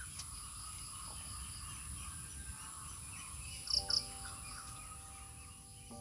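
Outdoor ambience of insects keeping up a steady high drone, with scattered bird chirps. A bird gives two sharp, high chirps just before four seconds in. Soft music with long held notes comes in at about the same time.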